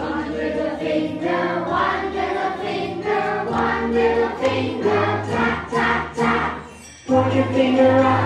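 An upbeat children's action song with group singing over a steady beat and bass line. The music drops out for a moment about seven seconds in, then comes back.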